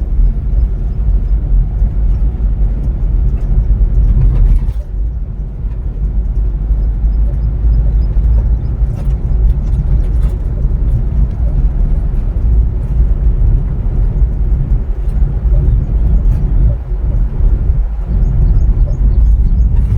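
Car driving along a road: a steady low rumble of running engine and road noise, briefly easing about five seconds in.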